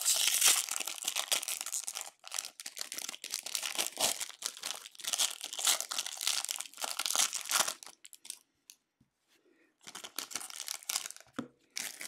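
Foil wrapper of a trading-card pack being torn open and crumpled, in bursts of crinkling with a pause of about two seconds near the end.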